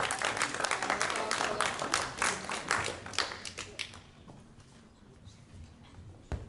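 Audience applauding with many hand claps, dying away about four seconds in; a single low thump near the end.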